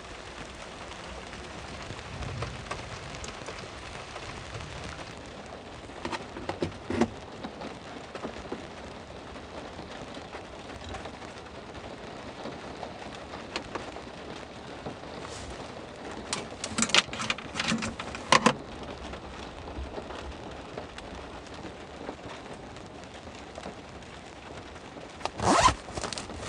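Steady rain falling, with a few sharp clicks and knocks on top: a couple early on, a cluster past the middle and the loudest knock near the end.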